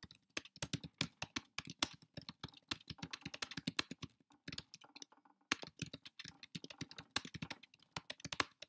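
Typing on a computer keyboard: rapid, continuous key clicks as a sentence is typed, with a brief pause about five seconds in.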